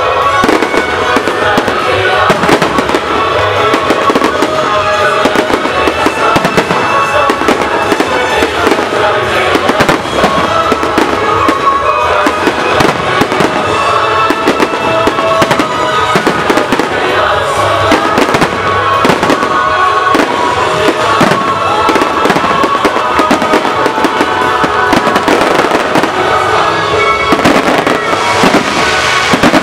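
Aerial fireworks going off, with many sharp bangs and crackles over music that plays throughout.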